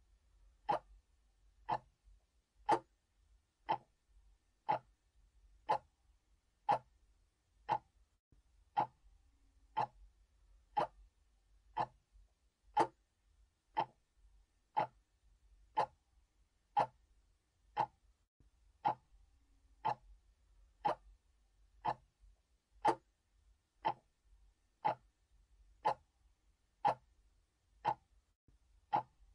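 Mechanical clock ticking steadily, about one tick a second.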